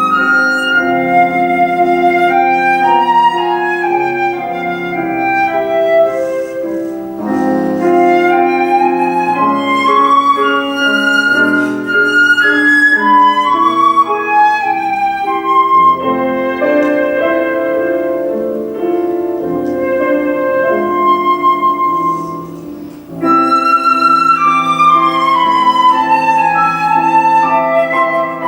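Concert flute playing a classical piece with piano accompaniment, a moving melody line with quick runs over piano chords, a brief break about three-quarters of the way through before the flute comes back in.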